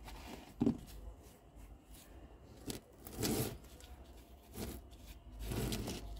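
Concrete statue handled on a tabletop: a short knock about half a second in, then a few rough scraping strokes as the statue's gritty surface rubs against the gloved hand and the table.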